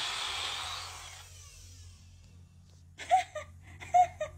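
Countertop blender running loaded with chopped ginger, onion, garlic and calamansi juice, its motor noise fading and its hum dropping in pitch as it winds down to a stop over the first second or so. About three seconds in, a woman gives a few short, high vocal sounds.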